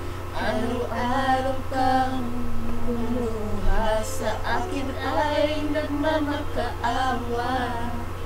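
Two young women singing a ballad together, their voices gliding and holding notes over recorded backing music, with a steady low electrical hum underneath.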